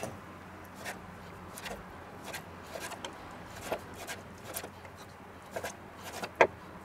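Kitchen knife slicing raw pork neck into thin strips on a wooden cutting board: quiet, irregular taps of the blade meeting the board, the sharpest about six seconds in.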